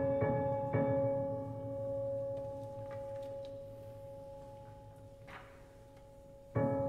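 Contemporary chamber music for flute, clarinet, violin, cello and piano: two soft attacks in the first second, then a single high held tone that rings on and fades almost to silence. A fresh, louder entry of several notes comes near the end.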